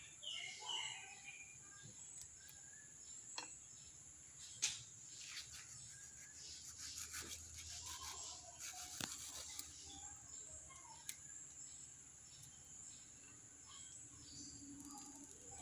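Faint bird chirps over a steady high hiss, with a few sharp clicks of a knife tapping a ceramic plate while a mango is cut; the loudest click comes about four to five seconds in.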